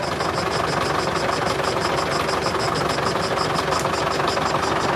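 An engine running steadily, with a fast, even ticking through it.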